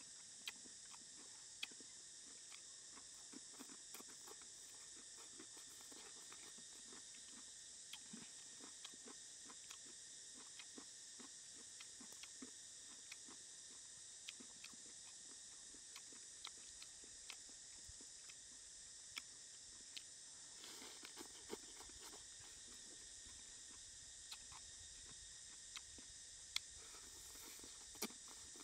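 A person chewing and biting crunchy vegetables with the mouth close to the microphone: scattered sharp crunches and clicks over a steady high hiss.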